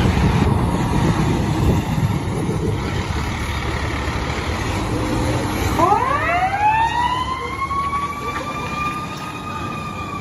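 Fire truck rumbling along, then about six seconds in its siren starts, rising steeply in pitch and then holding a high, steady wail.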